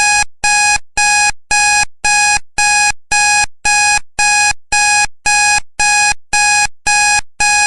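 Loud electronic alarm beeping, one pitched tone repeated evenly about twice a second: the timer's alarm signalling that the 15-minute countdown has run out.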